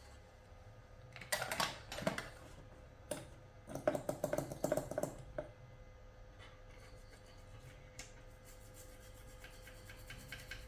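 Quick clusters of light clicks and rattles from small tools or parts being handled during TV board repair work, once about a second in and again from about three to five seconds in, over a faint steady hum.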